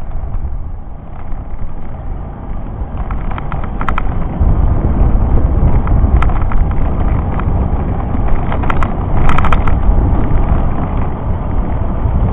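Wind buffeting and road rumble on a bicycle-mounted camera's microphone as the bike rolls over rough tarmac, getting louder about halfway through. A few short clusters of clicking rattles come through the noise.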